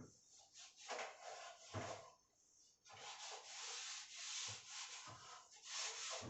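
Cloth wiping the glass of a microwave oven to clear oily grime: a few short rubbing strokes, then a longer stretch of steady rubbing.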